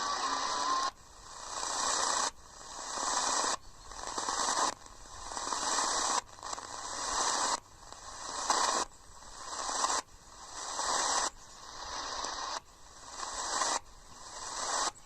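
Radio receiver hissing with static while tuned to medium wave. The noise drops off sharply and swells back up in a regular cycle about every second and a quarter.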